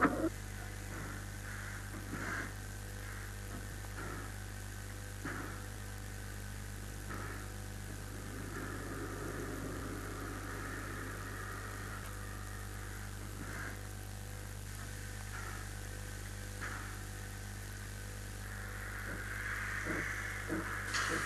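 Steam locomotive No. 62277 Gordon Highlander standing in steam, hissing faintly with a few brief soft knocks, over a steady low mains hum; the steam hiss grows louder in the last two seconds.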